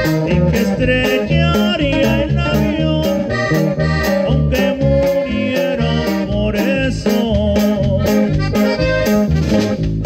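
Live norteño band playing: a button accordion carries the melody with quick runs over a steady beat from drums and bass, with guitar strumming.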